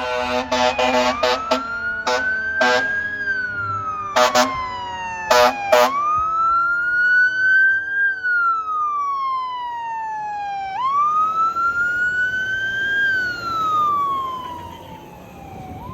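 Fire engine responding: air horn blowing, one long blast then several short blasts over the first six seconds, over its siren in a slow wail that rises and falls about every five seconds. A lower siren tone slowly falls underneath.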